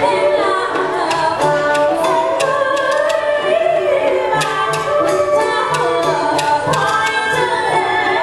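Traditional Vietnamese water-puppet theatre music played live: a sung melody over instrumental accompaniment, with regular drum beats and many sharp percussion strikes.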